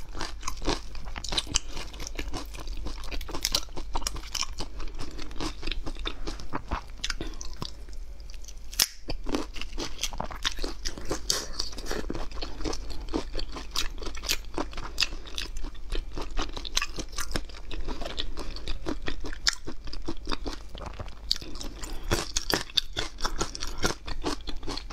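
A person chewing shrimp right at a clip-on microphone: a close, steady run of small wet clicks and crunches, with a brief lull about eight seconds in.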